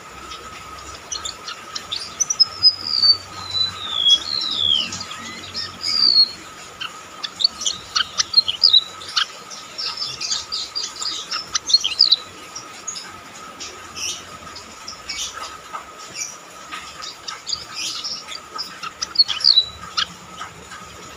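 Golden-bellied gerygone singing: high, thin whistled phrases that slide downward, followed by bursts of quick chirps, with pauses between the phrases.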